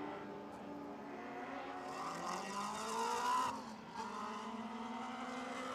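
Several high-revving lightning sprint car engines running as the field paces under caution before a restart. One car revs up, rising in pitch and growing louder as it passes close a little past three seconds in, then drops away sharply.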